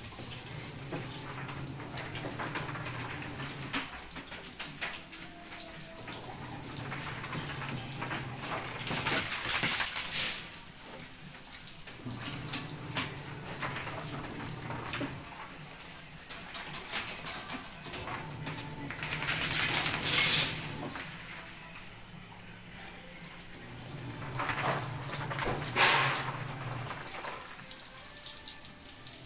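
Water from a hose spraying onto a dog and its wire cage and splashing onto the floor, a steady hiss that surges louder three times.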